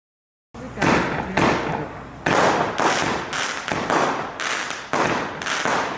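Multi-shot consumer firework barrage firing: sharp bangs about two a second, each trailing off briefly, starting about half a second in.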